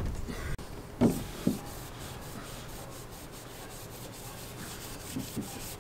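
A rag rubbing back and forth across the trailer roof, wiping the surface clean before tape goes down. Two sharp knocks about a second in are the loudest sounds.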